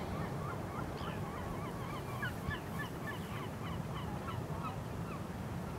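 A flock of birds calling in many short, rising-and-falling notes, several a second and overlapping, over a low steady rumble.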